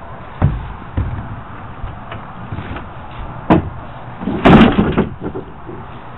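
An Old Town canoe being turned over by hand, its hull knocking and thumping several times. The loudest is a clattering thump a little past the middle, followed by a few small knocks.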